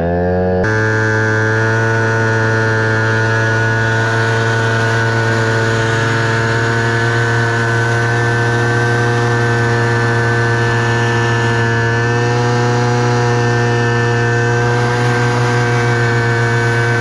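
Scooter moped engine held at steady high revs during a burnout, the rear tyre spinning on the spot on asphalt. The engine note climbs in the first second, then holds an even pitch.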